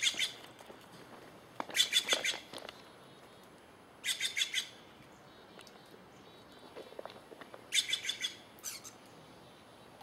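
Bird-like squawking calls in four short bursts, each a rapid run of harsh notes lasting under a second.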